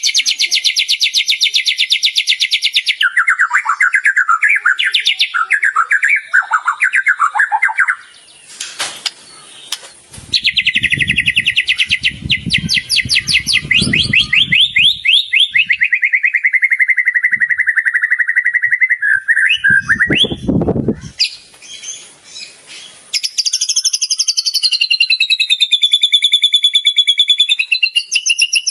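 White-rumped shama (murai batu) singing a masteran song full of mimicked phrases: very fast buzzing trills, a spell of varied chattering, then a long trill that falls in pitch. A few low rumbles come in the middle, and another rapid, wavering trill starts near the end.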